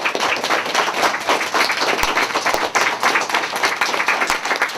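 Audience applauding: many people clapping at once in dense, irregular claps.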